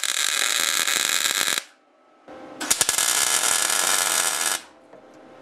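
MIG welding arc crackling as a steel track bar bracket is welded onto the axle tube. There are two welds: the first stops about a second and a half in, and the second runs from about two and a half to four and a half seconds.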